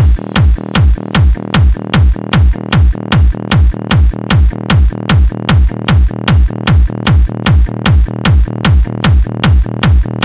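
Electronic dance music: a steady four-on-the-floor kick drum at about two beats a second over sustained synth tones, with a noisy riser sweeping in right at the end.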